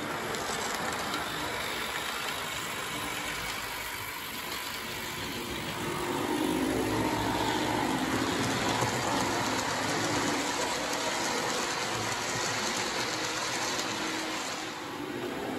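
Model electric train running on model railway track: a steady whir of the locomotive's small motor with the rumble of wheels on rail. It grows louder about six seconds in as the train passes close, then drops away shortly before the end.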